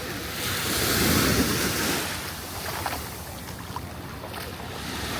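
Ocean surf washing onto the beach: a wave swells and breaks about half a second in, loudest for a second or so, then eases back into a steady wash. Wind buffets the microphone.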